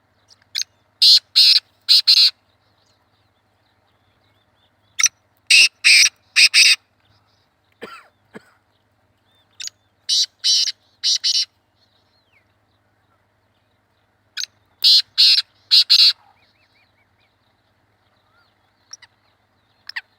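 Black francolin calling: four loud, harsh phrases about four to five seconds apart, each a short lead note followed by three grating notes.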